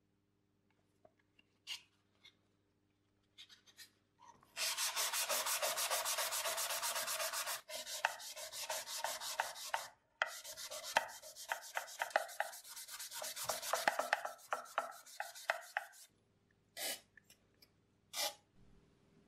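Hand sanding aluminium with P400 sandpaper: the paper rubs back and forth across the metal in rapid, even strokes, then in more uneven strokes after a short pause. A few light rustles of the paper come before and after the sanding.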